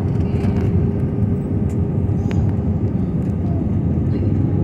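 Steady, loud roar of airliner cabin noise on the landing approach: engine and airflow rumble heard from inside the cabin, with a faint steady hum.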